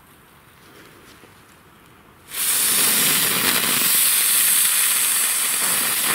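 A Keller Pyrospeed 'Speedies' ground firework. Its fuse burns quietly at first, then about two seconds in the charge ignites with a loud, even hiss of spraying sparks. The hiss lasts about four seconds and stops abruptly. On the soft, muddy ground it sprays in place and does not quite work.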